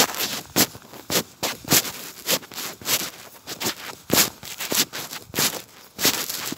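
Rhythmic rustling and scuffing in step with a person walking barefoot on wet grass, close to two strides a second: footfalls together with clothing brushing against the handheld phone at each stride.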